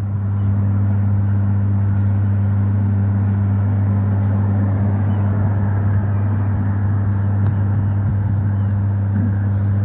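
A steady low hum that holds one pitch throughout, over a wash of street traffic.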